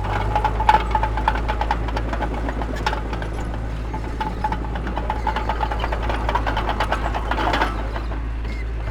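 Heavy earthmoving machinery's diesel engine running steadily, with irregular clanking and rattling over it and a louder burst of clatter about seven and a half seconds in.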